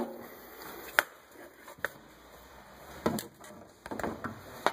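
Several sharp plastic clicks and snaps at uneven intervals, with a small cluster about three seconds in: plastic push-pin retainers being pressed home into the truck's lower splash shield.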